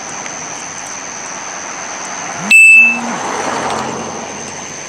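Road traffic hiss with a faint steady high whine. About two and a half seconds in, a loud electronic beep lasts about half a second and is the loudest sound here; the traffic noise swells just after it.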